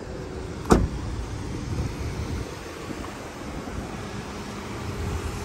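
The door of a 2021 Hyundai Elantra shutting once, a single sharp knock about a second in, over steady wind noise on the microphone.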